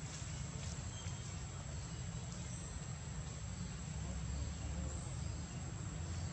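Steady outdoor background: a constant low rumble under an unbroken thin high-pitched whine, with a few faint ticks.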